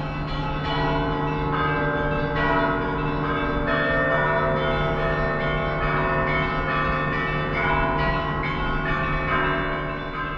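Orthodox church bells ringing together, many bells struck in quick succession with their tones overlapping, fading a little near the end.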